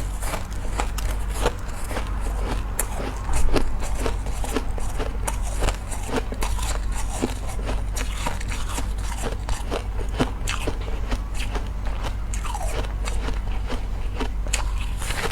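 Close-miked biting and chewing of ice: a dense, irregular run of crunches and small crackles, with a louder bite about three and a half seconds in.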